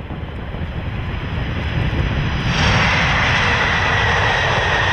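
Airplane engine noise, growing louder over the first two and a half seconds and then holding steady, with a high whine.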